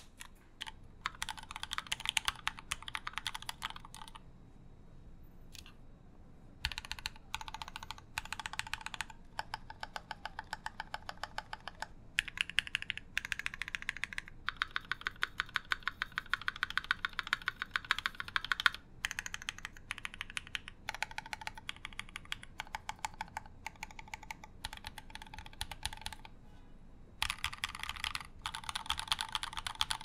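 Fast typing on custom mechanical keyboards fitted with lubed linear switches, a dense run of key clicks that stops and restarts in bursts with short pauses. The keys first sound in a clear stacked-acrylic case, then in an orange-cased 60% board.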